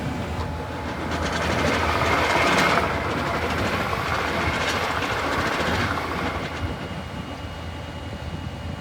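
Lely Welger RPC 445 Tornado round baler running, a steady mechanical clatter of its drive and rollers over a low hum. It swells for a second or so about two seconds in and eases off near the end.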